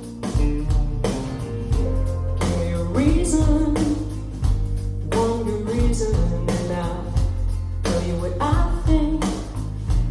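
A pop-rock song with a woman singing over guitar, bass and drums, played back through Wharfedale Denton 80th Anniversary bookshelf speakers and recorded in the room, with a steady beat.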